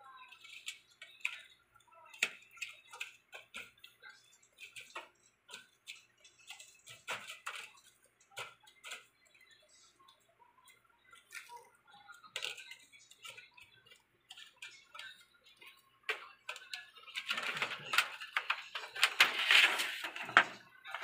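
Irregular light clicks and taps of hands handling the plastic reflector sheet and panel of an LED TV's backlight. About seventeen seconds in, a louder, denser rustling of the plastic sheet as it is lifted off the LED strips.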